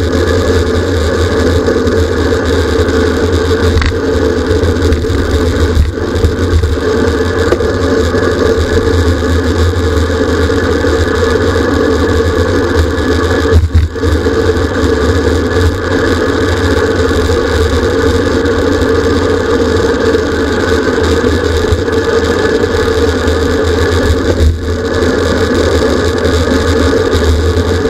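Steady wind and road noise from a bicycle moving at race speed, a loud constant rumble with a faint steady hum over it. A brief bump or knock comes a few times, about halfway through the loudest.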